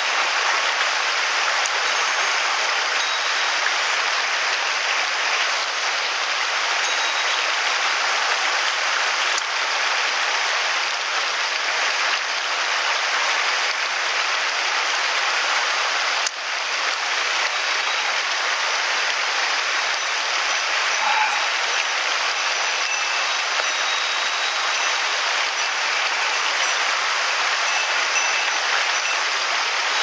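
Shallow mountain stream rushing over a cobble bed: a steady hiss of running water, briefly dipping about halfway through.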